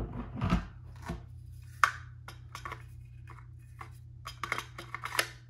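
Hard clicks and knocks of stainless steel pistol magazines being picked up and handled: one sharp click a little under two seconds in, and a quick cluster of clicks near the end.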